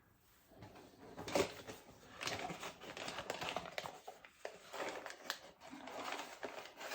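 Close-up handling noises: irregular rustling with clicks and light knocks, starting about half a second in.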